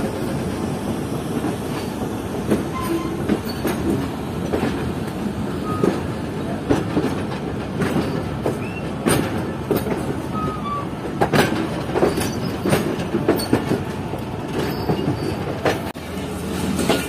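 Passenger train's wheels clacking irregularly over the rails as it pulls out of a station, under a steady rolling rumble, with a few brief wheel squeals.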